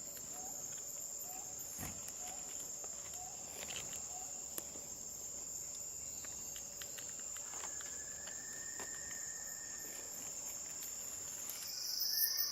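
Tropical forest insects droning steadily at a high pitch. A faint short note repeats about twice a second in the first few seconds, and a single long steady whistle-like tone is held near the middle. Near the end the drone changes to a louder, slightly lower one.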